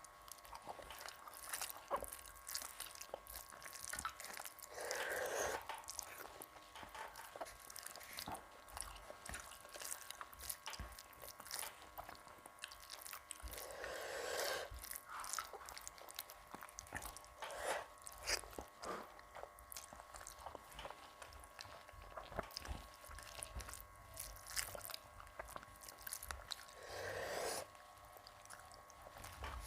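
Close-miked chewing and mouth sounds of a person eating rice with jackfruit curry: soft wet smacks and small clicks, with a few louder mouthfuls spread through.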